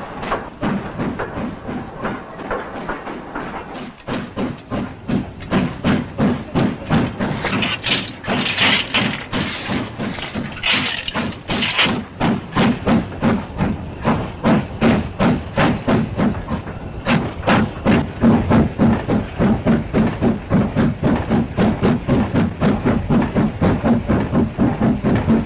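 Steam locomotive hauling a freight train, its exhaust chuffing in an even beat of about three chuffs a second. Loud bursts of steam hiss come about a third of the way in.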